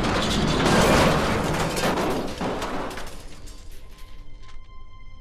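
Cartoon sound effect of a metal console being kicked: a loud crash, then about three seconds of dense clattering noise that fades away. Soft, sustained music tones come in near the end.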